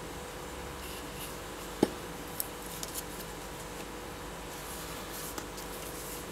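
Handling noise from a steel wristwatch case and leather strap turned over in the fingers: one sharp click about two seconds in, then a few lighter clicks and soft rustles, over a steady low hum.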